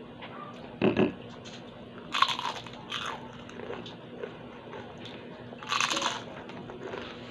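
Crunching bites into crispy fried kangkong (water spinach) leaves, with chewing between them. The loudest crisp crunches come about two seconds in, again at three seconds, and near six seconds.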